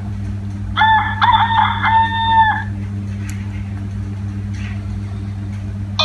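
A rooster crow recording (the Nokia 3220's "Rooster.amr" tone) played through the phone's small loudspeaker: one crow starting about a second in and lasting about two seconds, over a steady low hum.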